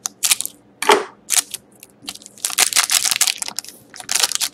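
Scissors snipping through the shiny wrapper of a trading-card pack in a few sharp cuts, then the wrapper crinkling as it is pulled open.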